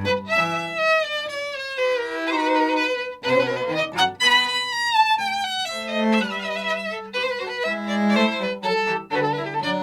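A Baroque string ensemble playing live, with violin carrying a moving melody over a lower bowed-string line.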